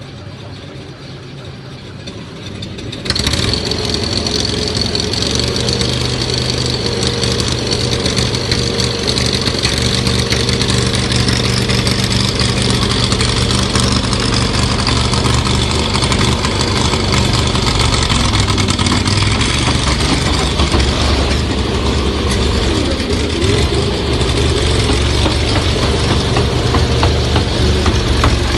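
A vehicle engine, that of the home-built airsoft tank, running steadily; it turns loud abruptly about three seconds in and then holds at a fairly even level.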